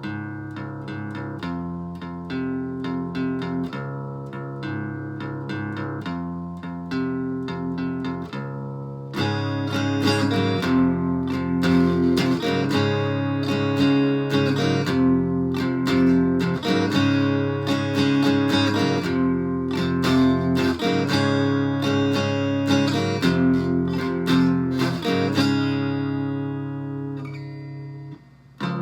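Acoustic guitar with a Bartolini 3AV soundhole pickup, played through a BOSS DS-1 distortion pedal and amp, tuned half a step down. It picks a softer passage of single notes and chords, comes in louder about nine seconds in, and lets the last chord ring out near the end.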